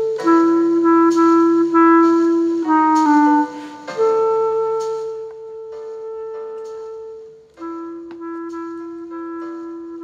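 Background music: a clarinet playing a melody of long held notes, louder for the first half and softer from about halfway.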